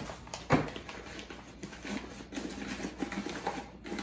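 Thick, heavy packing paper rustling and crinkling as a paper-wrapped glass is handled and unwrapped, with a short knock about half a second in.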